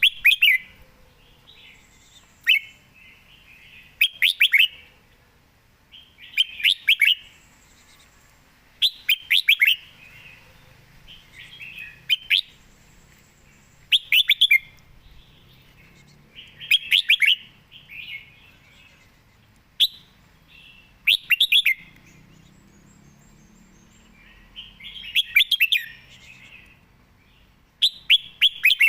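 Red-whiskered bulbul singing: short, quick whistled song phrases repeated every two to three seconds, about a dozen in all.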